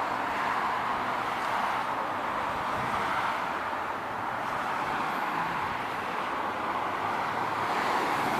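Husqvarna M-ZT52 zero-turn mower's 28 HP engine running steadily at an even speed.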